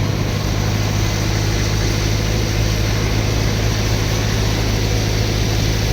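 A vehicle engine running steadily with an even low hum, under a constant noisy rush.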